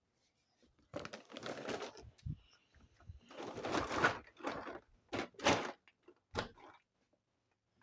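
Gusts of storm wind rushing in uneven bursts, rising and dying away every second or two, with brief quiet lulls between gusts.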